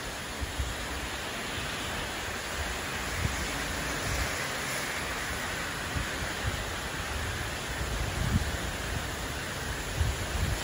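Heavy cloudburst rain falling as a steady, even hiss, with short low thumps of wind buffeting the microphone, more of them in the last few seconds.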